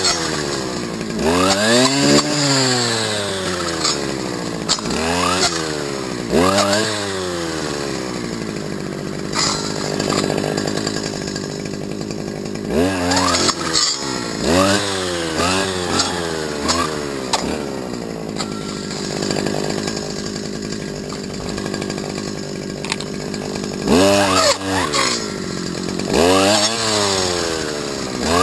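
Stihl FS250 brush cutter's two-stroke engine revving up and dropping back again and again, with stretches of steadier running between the revs.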